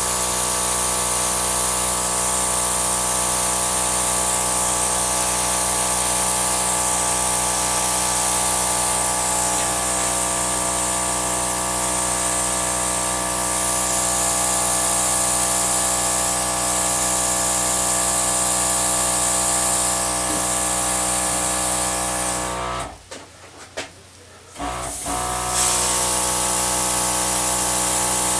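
Air gun blowing a steady stream of air: a loud hiss over a steady motor hum. It cuts out for about two seconds near the end, then starts again.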